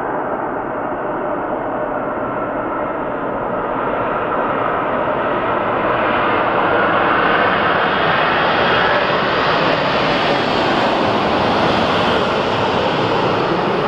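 Airbus A380's four turbofan engines at climb power just after take-off: steady jet noise that grows slightly louder and gains more hiss toward the end.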